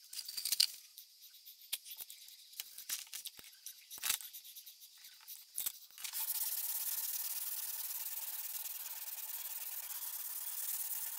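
Light clicks, taps and rubs of small knife parts being handled on a work mat, then from about six seconds in a steady sanding hiss as a strip of abrasive is pulled back and forth around a knife handle at the guard, stopping just before the end.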